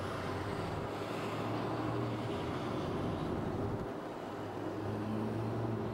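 City traffic: a steady rumble of road noise with the low hum of vehicle engines, which swells twice, about a second in and again near the end.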